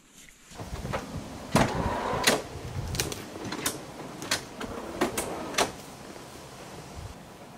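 A string of sharp knocks and clicks, roughly one every two-thirds of a second, over rustling: gear being handled in the cargo area of a four-wheel drive as a fridge slide is pulled out. The knocks ease off after about six seconds.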